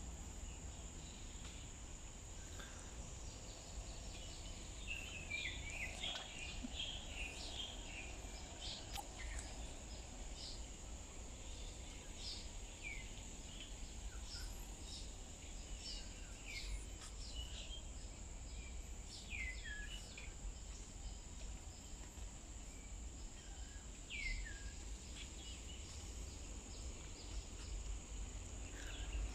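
Wild birds giving short, quick falling chirps again and again over a steady high-pitched insect drone, with a low rumble underneath.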